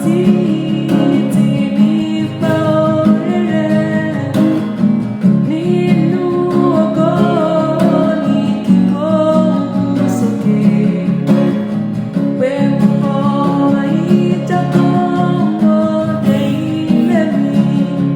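A solo voice singing a Yoruba hymn over a steady acoustic guitar accompaniment, the melody moving through held, gliding notes.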